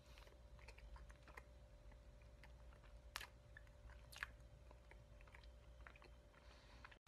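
Faint chewing of a cake bite with the mouth closed: small wet mouth clicks, with two sharper ones about three and four seconds in, over a faint steady hum.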